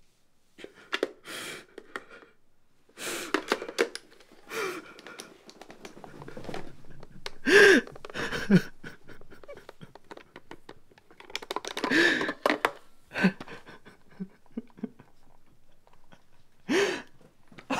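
A young man's heavy breathing: a series of breaths and gasps, several with a short voiced catch that rises and falls in pitch.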